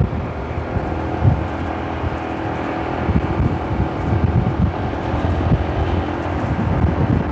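Vehicle engine running, with wind buffeting the microphone.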